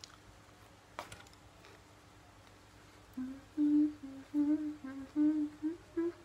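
A woman humming a short tune with her mouth closed, a string of short notes starting about three seconds in. A single sharp tap about a second in.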